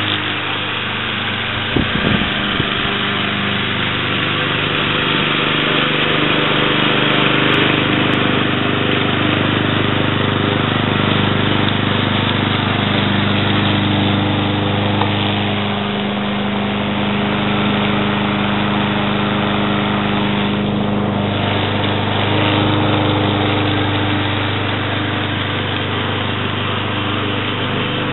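Ariens Blade Runner self-propelled mower's Kohler Courage 173cc single-cylinder engine running steadily under mowing load, its note shifting slightly a few times. A few short knocks come about two seconds in.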